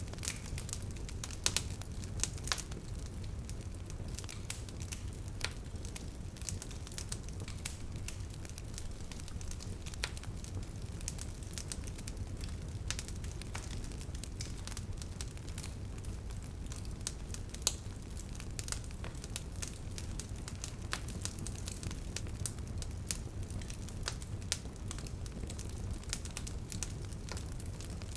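Wood fire crackling steadily, with frequent sharp pops and snaps at irregular intervals over a low rumble of burning.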